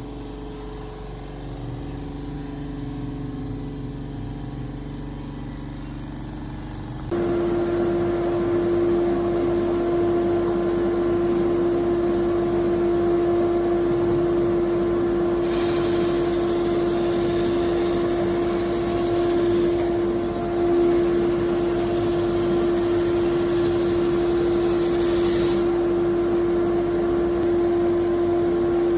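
Electric drum sander's motor running with a steady whine. It steps up suddenly to a louder, steady hum about seven seconds in. A hiss is added for two stretches of about five seconds each in the second half, fitting the spinning drum working against a surface.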